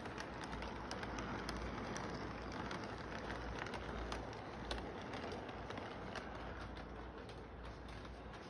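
Model train cars rolling close by on toy track: a steady rumble of wheels with irregular clicks from the rail joints, easing off a little after about five seconds as the cars move away.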